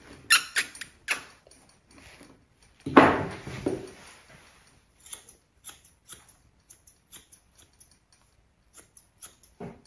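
Grooming scissors snipping through a small dog's coat, in quick irregular snips, about three a second from about five seconds in. A brief louder rustle comes about three seconds in.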